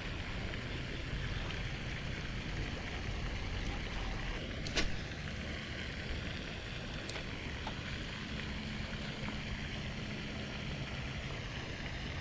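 Steady outdoor background noise with wind on the microphone, broken by one sharp click about five seconds in and a fainter one about two seconds later; a faint low hum joins in the second half.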